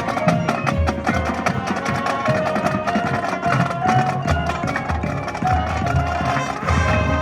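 Marching band playing: held brass and woodwind notes over steady percussion clicks and low drum hits.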